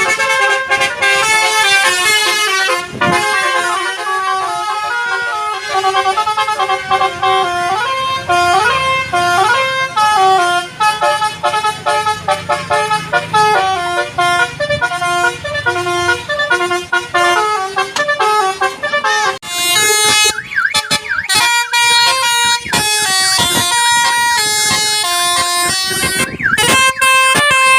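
Telolet Basuri multi-tone vehicle horn playing a tune as a string of stepped horn notes. From about two-thirds of the way through, the notes turn shorter and choppier, with brief gaps between them.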